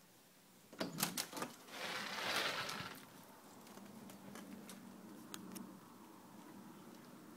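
A door being unlatched and opened: a quick run of clicks about a second in, then a second or so of rushing noise as it swings, followed by faint background with a couple of small clicks.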